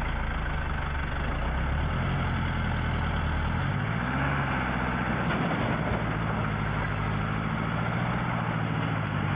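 Heavy truck engine running hard, with a steady low drone that rises in pitch as it revs up about four seconds in, then holds steady again.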